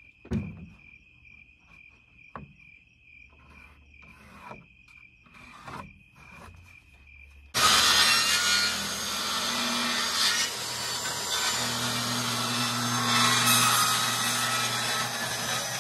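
Crickets chirring steadily, with a few sharp knocks and rustles. About halfway a handheld power saw starts suddenly and runs loud and steady, cutting through wooden boards.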